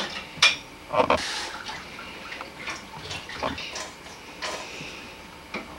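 Indistinct low voices in a room, with scattered clicks and knocks.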